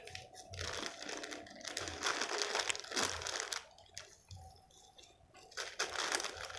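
Plastic crinkling and rustling as soil is scooped by hand from a woven plastic sack into a small plastic bag. It comes in uneven bursts, with a quieter stretch about four seconds in before it picks up again near the end.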